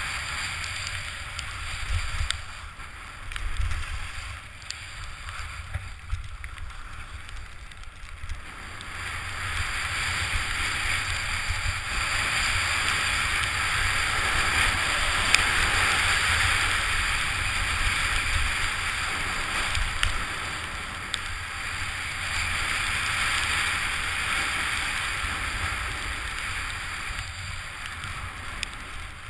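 Skis hissing through soft snow on a fast descent, with wind rushing over the camera's microphone and a low buffeting rumble. The rush swells about a third of the way in and is loudest in the middle.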